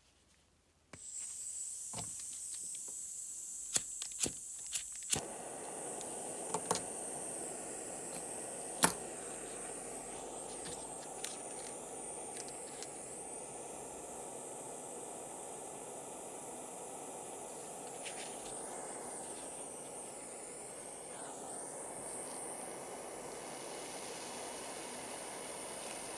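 Gas pencil torch hissing: the gas hiss starts suddenly about a second in, several sharp clicks follow over the next few seconds, and from about five seconds a fuller, steady flame hiss runs on.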